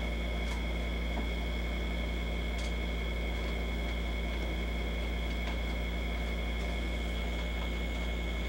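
Steady low hum with two faint, thin high-pitched whines over an even background hiss, with no distinct event.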